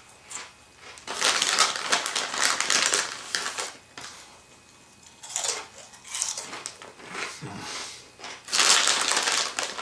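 Crunchy Cheetos being chewed close up, a dry crackling crunch in several bouts with pauses between them, the loudest bout near the end.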